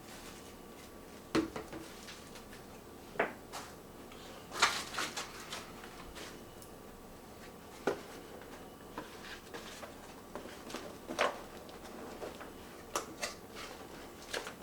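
Handling noises from unpacking a camera and its accessories: scattered sharp taps and clicks, about a dozen spread unevenly, some followed by brief rustling, as objects are picked up and set down.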